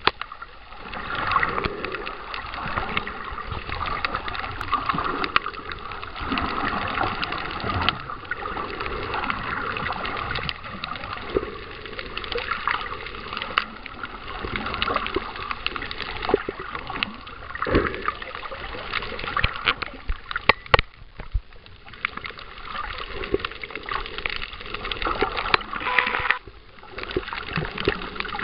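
Water noise picked up by an underwater camera while snorkelling: a continuous churning, sloshing hiss with many scattered clicks and crackles.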